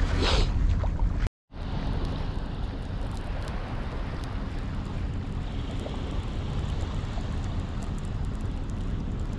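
Steady wind rumble on the microphone over a soft hiss of gentle surf. A brief rustle of hands on the rod and reel comes at the start, and the sound drops out for a moment about a second in.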